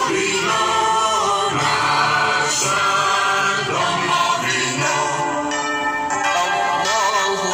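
Music with a singing voice: held notes over a steady accompaniment, one note wavering with vibrato near the end.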